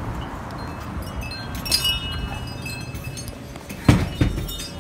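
A door chime on a shop's entry door rings briefly, a few high metallic notes, as the door is opened, about two seconds in. Near the end come two thumps, the first of them the loudest sound here.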